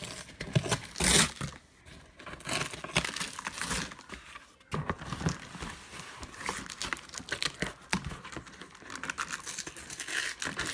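Shipping packaging being torn open by hand: irregular crinkling and rustling with bouts of tearing, loudest about a second in.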